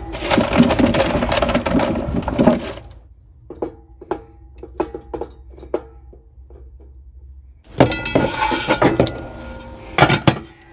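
Stainless steel camping oven and baking tray being handled. Clatter and rustling, then a run of light clicks as croquettes are set one by one on the stainless tray, more clatter, and a few knocks near the end as the lid goes on.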